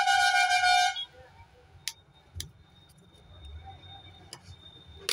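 A vehicle horn honks once, a steady pitched tone lasting about a second. A few sharp clicks follow as a thin tool pries at the plastic casing of a small Bluetooth speaker.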